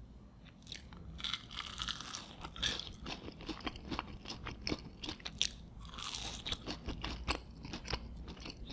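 Crispy homemade potato fries being bitten and chewed, a dense run of crisp crunching that starts about a second in.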